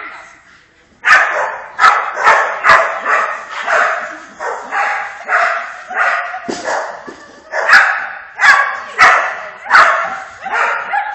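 A dog barking over and over, about two barks a second, starting about a second in after a brief pause.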